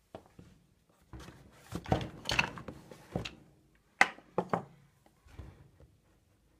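Handling noises as a cedar shoe tree is worked out of a leather penny loafer: rubbing and scraping with several wooden knocks. A sharp knock comes about four seconds in as the tree is set down on the sill, followed by lighter knocks and rustling as the shoe is picked up.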